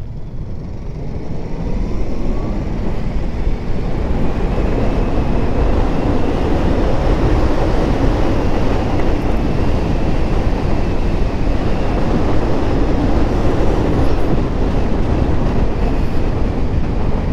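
Motorcycle on the move, heard from the bike itself: a rumbling engine and wind rush that grow louder over the first few seconds as the bike picks up speed, then hold steady.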